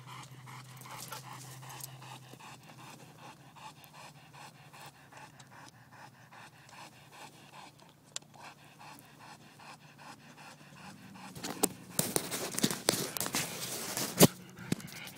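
Dogs panting hard, worn out from chasing the RC plane: fast, faint breaths. Near the end comes a louder stretch of rustling with sharp clicks.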